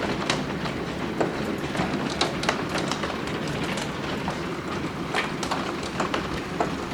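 Hail mixed with rain coming down hard: a steady rush of rain with many scattered sharp clicks of hailstones striking hard surfaces.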